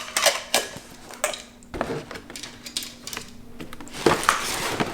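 Gift wrapping being handled: a few light clicks and knocks of objects being moved and set down, then crinkly rustling of a gift bag and its paper from about four seconds in.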